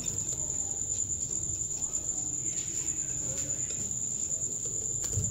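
Wire whisk stirring a thick batter in a glass bowl, faint soft scraping, over a steady high-pitched tone that runs throughout.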